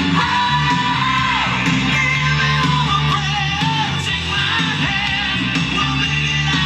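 Rock music: a singer holding long notes over guitar and a steady bass line.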